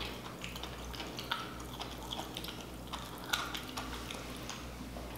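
Faint wet mouth sounds of sipping a frozen mangonada through a straw and swallowing: a scattering of soft clicks and smacks.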